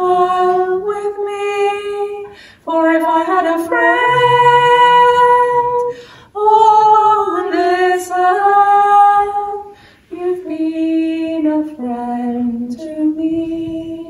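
A woman singing unaccompanied, slow and in long held notes, in phrases of a few seconds with short breaks for breath.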